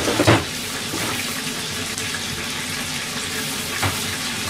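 Chicken karaage deep-frying in hot oil, a steady sizzle, with a knock about a quarter of a second in and a fainter one near the end.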